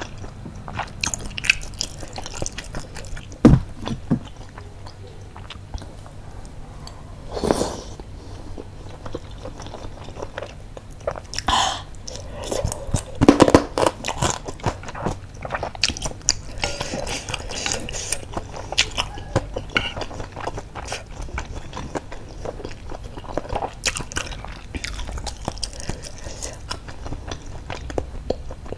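Close-miked eating: chewing and biting on chewy tapioca meatballs (baso aci) and fried meatball strips (basreng) in spicy broth, with a steady run of small wet mouth clicks. A few louder sharp clicks and smacks come about 3.5 seconds in, near 7.5 seconds, and between 11 and 14 seconds.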